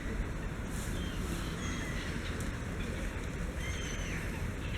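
A few short bird chirps over a steady outdoor hiss and low rumble.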